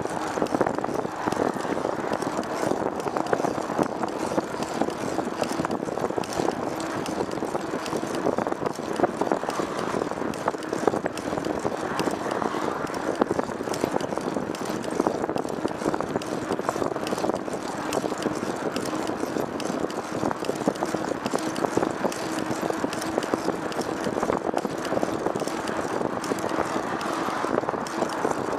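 Steady running noise of a moving vehicle, with a constant low hum and a rattly texture throughout.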